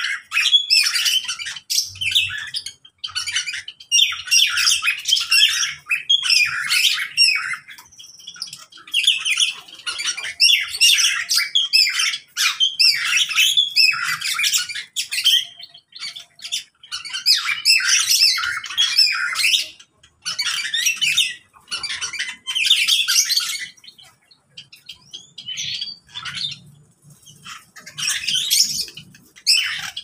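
A mixed aviary of small parrots and finches (lovebirds, long-tailed parakeets, Java sparrows and cockatiels) squawking and chirping over one another in repeated shrill bursts with short pauses between.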